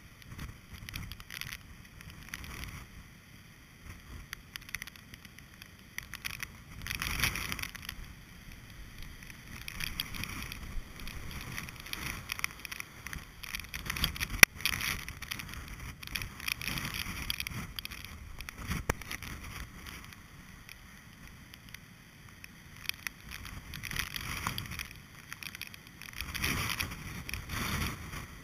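Hurricane-force storm wind buffeting the microphone over the rush of heavy surf, swelling and easing in gusts every few seconds. One sharp knock about halfway through.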